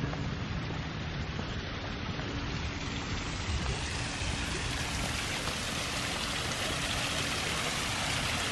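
Water splashing down a small man-made rock waterfall, a steady rushing that grows louder and brighter from about halfway through as it is approached.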